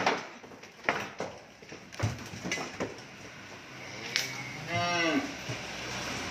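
A cow moos once, about four and a half seconds in, for about a second, its pitch dropping at the end. A few sharp knocks come earlier.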